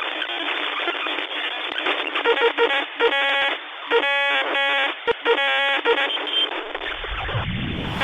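Crackling radio-style static with runs of electronic beeping tones in the middle, all thin and narrow like sound heard over a radio or phone line.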